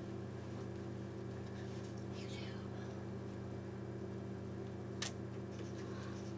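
Steady low hum of room tone, with one sharp click about five seconds in.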